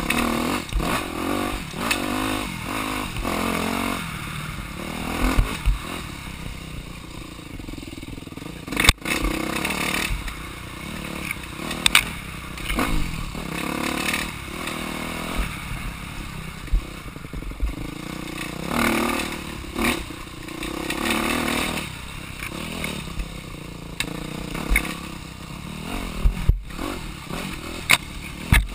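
Off-road dirt bike engine revving up and down as it is ridden over rough ground, with clattering and several sharp knocks from the bike jolting over bumps.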